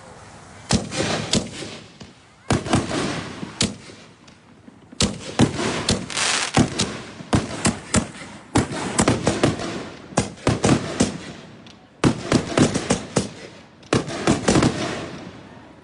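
Aerial firework shells bursting overhead: repeated clusters of quick, sharp bangs, a new cluster every one to two seconds.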